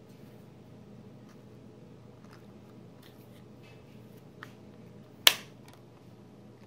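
A hard plastic clip-on toy capsule being handled, with faint clicks and then one loud, sharp plastic snap a little after five seconds in.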